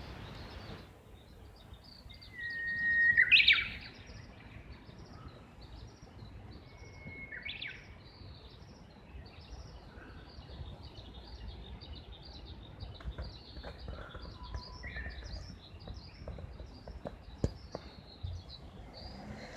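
Japanese bush warbler singing its song twice: a long held whistle ending in a quick rising-and-falling flourish (the 'hoo-hokekyo' phrase), loud about three seconds in and quieter about seven seconds in. Faint high chirps go on throughout.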